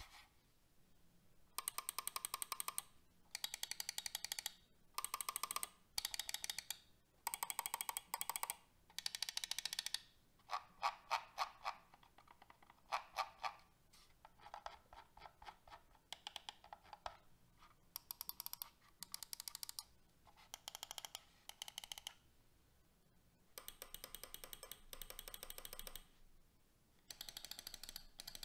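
Gaming-mouse main buttons being clicked rapidly: a Logitech G Pro X Superlight 2 and a Razer DeathAdder V3 Pro. The crisp clicks come in runs of about a second, with short pauses between them.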